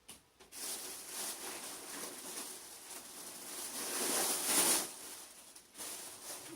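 Close-up rustling that swells for about five seconds, loudest near the end, then stops abruptly.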